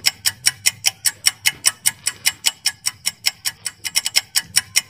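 Clock-style ticking sound effect of a quiz countdown timer: rapid, even ticks, about seven a second.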